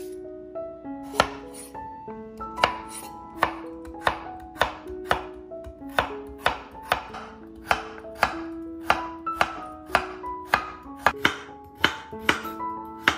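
Chef's knife slicing a carrot into rounds on a wooden cutting board: a sharp knock of the blade on the board about twice a second, starting about a second in and quickening slightly. Light background music plays underneath.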